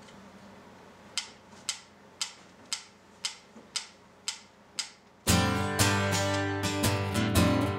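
A steady run of about eight sharp ticks, roughly two a second, then an acoustic guitar comes in strumming chords loudly a little past five seconds in, at the pace the ticks set.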